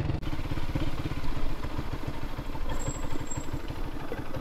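A motorcycle engine idling, a steady low pulsing rumble.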